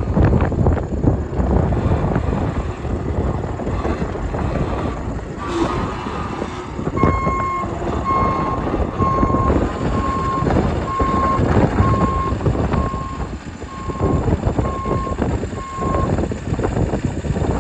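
John Deere 333E skid steer's diesel engine running, and partway through its backup alarm starts beeping about once a second as the machine reverses, about ten beeps in all.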